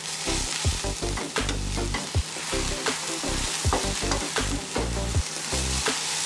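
Diced eggplant, onion, carrot and bell pepper sizzling in a frying pan, stirred with a wooden spatula that scrapes and knocks against the pan now and then.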